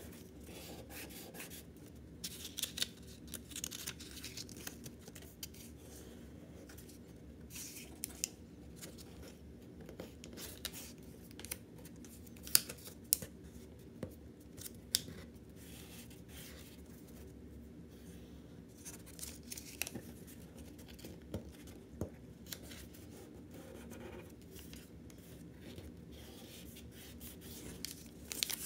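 A US one-dollar bill being folded and its creases pressed flat by fingertips: irregular crisp rustles, scrapes and small snaps of the paper note against the tabletop, with a few louder snaps midway.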